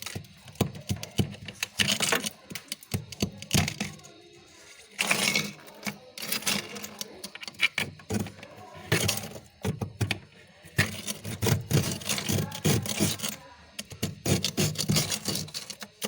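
Freezer frost crunching close to the microphone: rapid crisp crackles and clicks, with longer crunches about five and nine seconds in.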